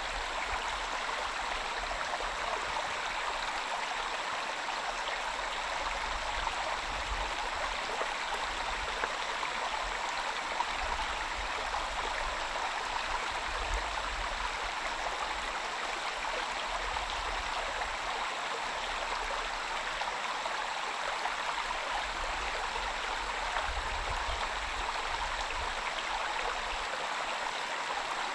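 Rain falling steadily, an even rushing hiss with no breaks.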